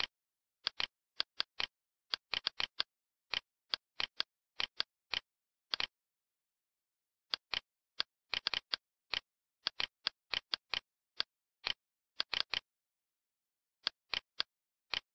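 Computer mouse buttons clicking irregularly, often in quick pairs, with dead silence between the clicks and a pause of over a second about six seconds in.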